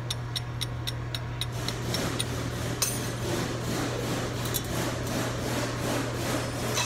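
Metal hand tool working on a front CV axle shaft: quick, evenly spaced clicks like a hand ratchet for about the first second and a half, then irregular metallic knocks and clinks. A steady low hum runs underneath.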